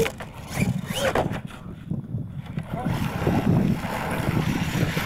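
Wind buffeting the microphone, an uneven low rumble, with faint distant voices.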